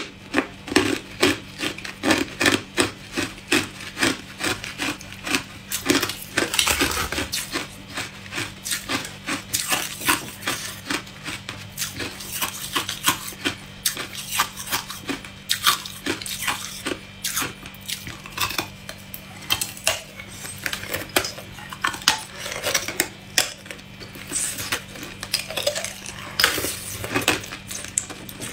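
Teeth biting and crunching hard clear ice, a fast run of sharp crunches, two or three a second.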